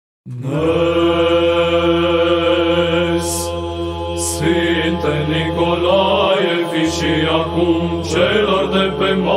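Byzantine chant in Romanian: a voice sings a long, drawn-out melodic line over a held low drone (ison). It starts abruptly about a third of a second in, out of silence, and the drone drops out briefly past the middle.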